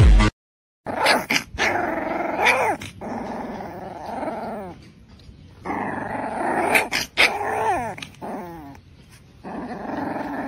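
A small black-and-tan puppy growling in play at a hand, in three bouts with a few yelps mixed in.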